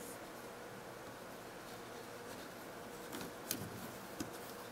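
Nylon loops on a plastic potholder loom rustling softly as a plastic shuttle is worked over and under them, with a few light clicks near the end over faint room tone.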